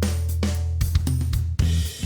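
Background music with a drum kit and a steady bass line, drum hits falling about twice a second, briefly dropping out near the end.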